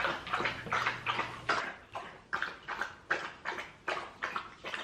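A dog lapping water from a bowl in a quick even rhythm, about three laps a second.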